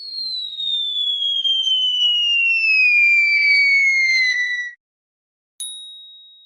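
Falling-whistle sound effect: one long whistle gliding steadily down in pitch for about five seconds, then cutting off. About a second later comes a single bright ding that rings and fades away.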